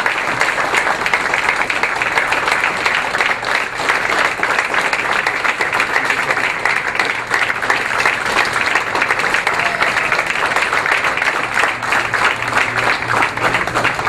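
Crowd applauding: many hands clapping in a dense, steady run.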